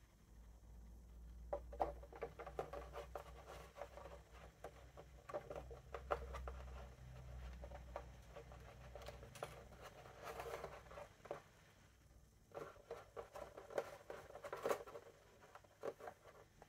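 Faint scattered rubbing, pattering and light clicks of a rubber seal strip being handled and pressed into the frame of a plastic laptop cooling pad.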